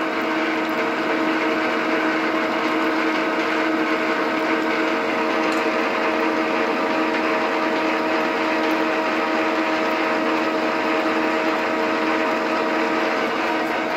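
Geared milling machine running its spindle at a steady speed: a constant machine whine of several held tones over an even mechanical hiss.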